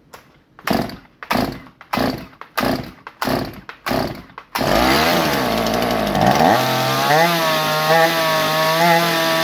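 Two-stroke Solo chainsaw pull-started on choke: about six rapid pulls of the starter cord, then the engine catches about four and a half seconds in and runs, its revs wavering at first and then steadier. This is the first start on a new Chinese replacement carburettor that has not yet been adjusted.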